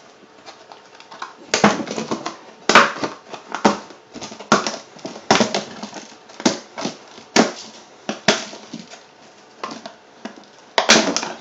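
Staples being pulled from a wooden frame as the thin vacuum-formed plastic sheet is worked free, in a string of sharp crackles and snaps, roughly one a second.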